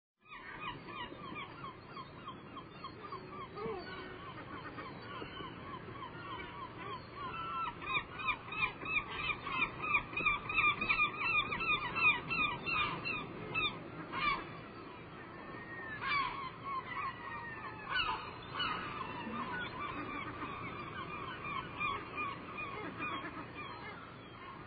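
A flock of large birds honking together in a dense, goose-like chorus, many short calls overlapping several times a second, loudest about a third of the way in.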